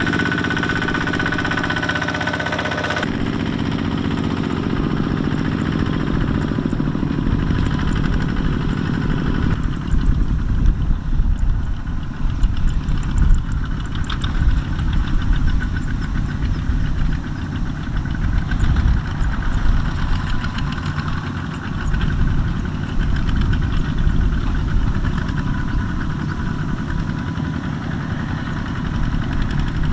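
Single-cylinder diesel engines of Kubota walking tractors chugging with a rapid knock while hauling loaded rice trailers. The sound changes abruptly about three seconds in, and from about ten seconds in the chugging turns coarser and louder as several tractors pass.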